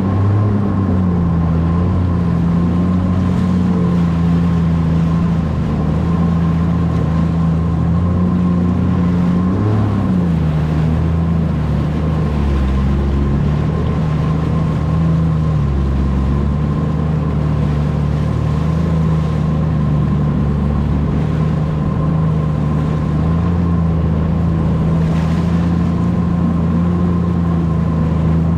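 Jet ski engine running at a steady cruising speed, its pitch dipping briefly and then climbing back about ten seconds in.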